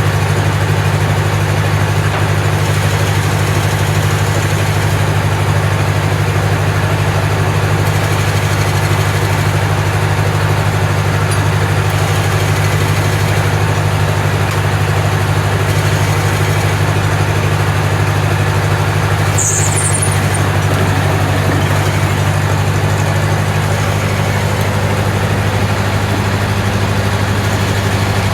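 An engine running steadily at constant speed with a low hum, with a brief high squeak about two-thirds of the way through.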